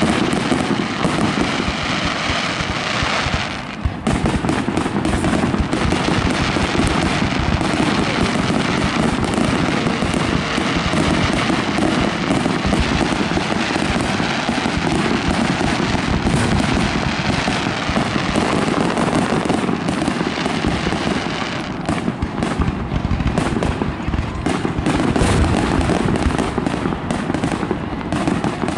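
Aerial fireworks display: a dense, near-continuous run of shell bursts and crackling, with a brief lull about four seconds in.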